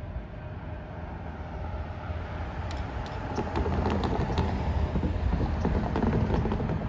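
Train approaching a railroad crossing: a low rumble that grows louder about halfway through, with scattered sharp clicks and clatter.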